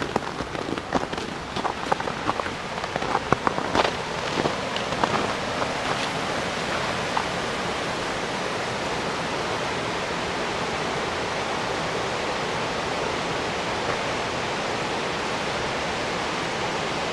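Split Rock River rapids rushing over rock ledges, a steady even roar of water. Scattered short clicks and crunches come through during the first several seconds, then the water alone stays steady.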